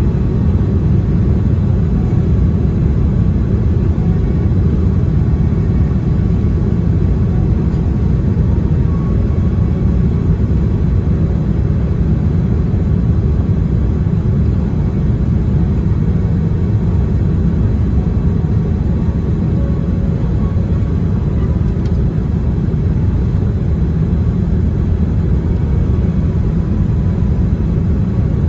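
Boeing 787-10 airliner noise: a steady low rumble with faint thin tones above it, holding level throughout.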